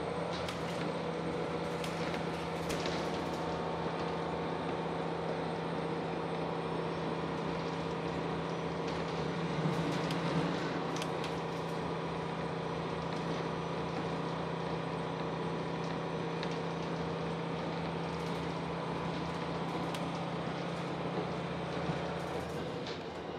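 Cabin sound of a diesel railcar running at a steady speed: the constant drone of its diesel engine over steady rail and running noise.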